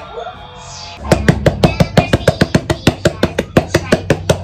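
Music with a fast, sharp clicking beat, about seven clicks a second over a low steady bass, starting about a second in; before it, a soft rustle.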